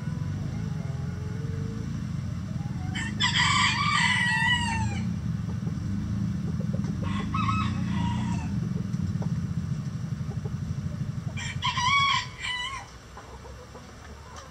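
Chickens calling: a long warbling call about three seconds in, a shorter one around seven seconds and another near twelve seconds. A steady low rumble runs beneath them and drops away near the end.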